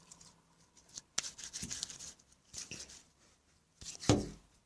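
Homemade slime being kneaded and pressed together by hand, giving soft sticky clicks and crackles, with a louder knock about four seconds in.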